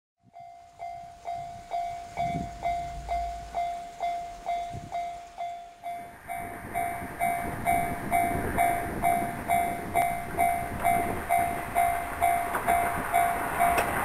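Japanese level-crossing warning bell ringing, a repeating electronic ding about twice a second while the crossing is closed. In the second half a rumbling noise grows louder beneath it, the approaching train.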